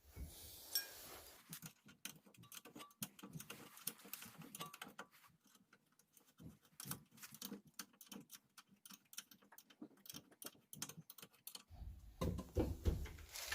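Ratchet wrench clicking in quick, irregular runs as the rear brake caliper bracket bolts are run in, with some heavier tool handling near the end.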